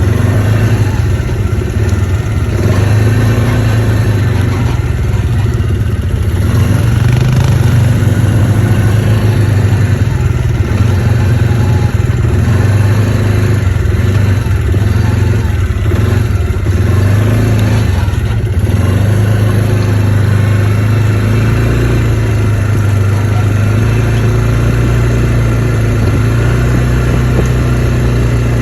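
ATV engine running under way, a steady hum that rises and falls a little in pitch as the throttle changes.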